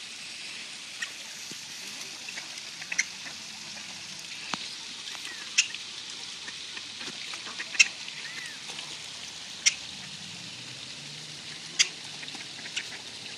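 Waterfowl on a pond, ducks with a mute swan: short sharp calls about every two seconds over a steady hiss.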